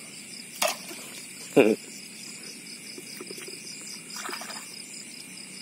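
Steady night chorus of crickets, a constant high trilling at several pitches. About half a second in there is a short sharp sound, and about a second and a half in a louder brief sound that drops in pitch.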